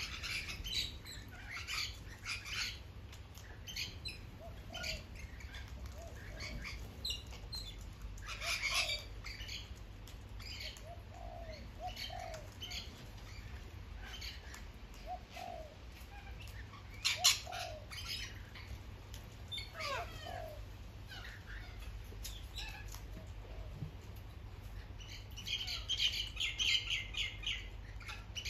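Rainbow lorikeets and corellas at a feeding table calling: short, sharp screeches scattered throughout, with a rapid chattering run near the end, mixed with the odd lower note and wingbeats of birds flying on and off.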